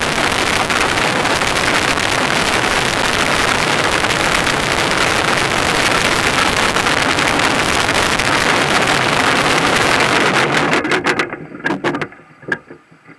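A soapbox cart towed by rope over a rough dirt track, heard as a loud, steady rush of wind on the microphone mixed with the cart's rattle over the ground. It dies away about eleven seconds in, leaving a few clicks and knocks.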